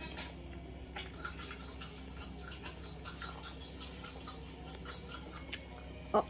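Close-up eating sounds: fingers picking at a shrimp tempura sushi roll with crunchy flake topping, giving soft crackles and small clicks, then a short, louder sound near the end as a piece is bitten.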